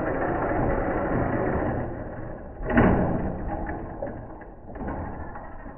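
Small electric RC truck running on a wooden deck: motor and drivetrain noise with the tyres scrubbing over the boards, dying away as it drives off, with one sharp louder burst about three seconds in.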